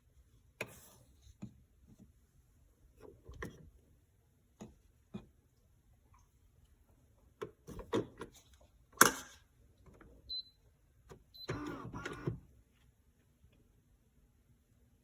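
Scattered clicks, taps and knocks of hands handling small hard objects, with the sharpest click about nine seconds in. A short high beep sounds about ten seconds in, and a brief scraping rustle follows a little later.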